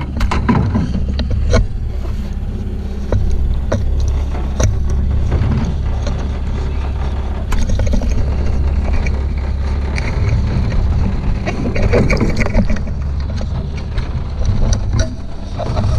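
Small outboard motor running steadily, with scattered knocks and clunks of the metal gig pole and gear against the aluminium boat hull.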